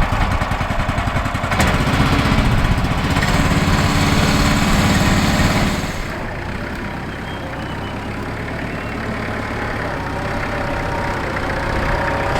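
An engine running steadily. It gets louder with a hissing edge about one and a half seconds in, then drops back to a quieter steady run about six seconds in.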